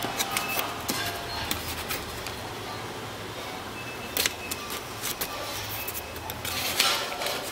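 Knife blade slicing through packing tape on a cardboard box: scratchy crackling with many small ticks as the tape splits, and a louder rasping scrape near the end.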